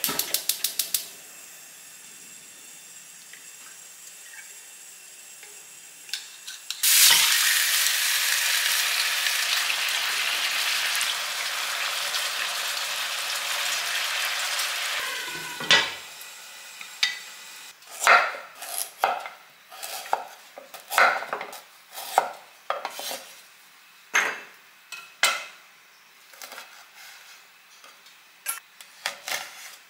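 Gas hob igniter clicking rapidly as a burner is lit. About seven seconds in, marinated chicken pieces go into the hot wok and sizzle loudly for several seconds while stirred with a spatula. In the last third, a knife chopping a red chili on a wooden cutting board, single knocks about a second apart.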